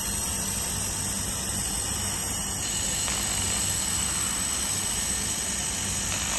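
LaserMen LM-2000 handheld fiber laser welder running a bead on sheet metal without filler wire: a steady rushing hiss with a low hum underneath, which gets a little fuller and louder about two and a half seconds in.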